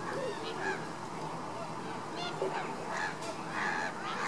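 A flock of flamingos calling: many short honks from several birds, overlapping, busiest in the second half.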